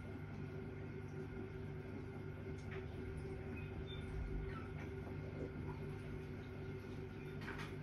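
Steady low hum with a few faint ticks.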